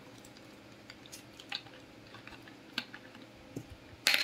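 Soft clicks of chewing, then near the end a loud short clatter as a plastic drink bottle is handled.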